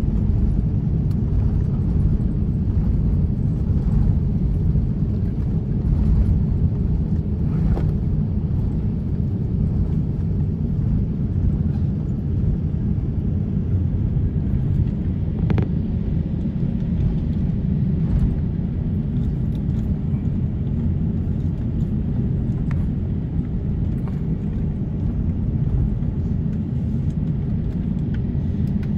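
Steady low rumble inside the cabin of an Airbus A350-900 as it taxis: the Rolls-Royce Trent XWB engines at idle and the landing gear rolling over the concrete, with a couple of faint ticks.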